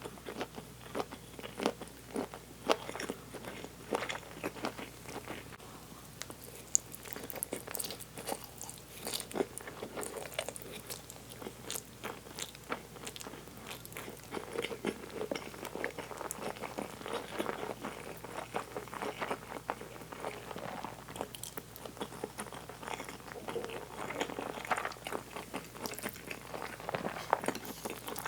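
A person eating close to the microphone: chewing with many short, sharp, wet mouth clicks and smacks throughout.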